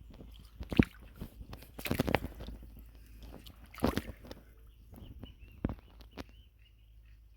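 Irregular squelches and splashes in mud and shallow water, a handful of separate wet knocks and sloshes that are loudest in the first half and thin out later. Faint high chirping comes in near the end.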